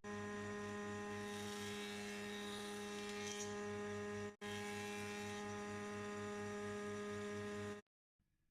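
Electric motor of a planer-thicknesser running with no wood in it: a steady hum with a low throb pulsing several times a second. It cuts out for an instant about halfway and stops abruptly near the end.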